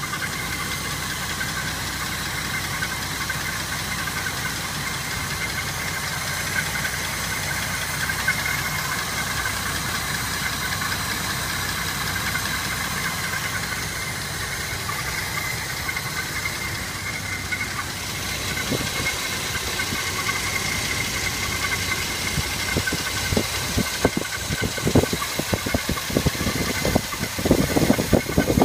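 1982 Camaro's carbureted 2.8-litre V6 running at idle with a steady high-pitched whine, which the owner thinks comes from a pulley. From about two-thirds of the way in, a sharp ticking comes up and grows louder toward the end.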